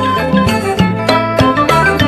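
Traditional northeastern Thai folk music accompanying a dance: pitched melody instruments over held low drone notes, with percussion strikes marking the beat.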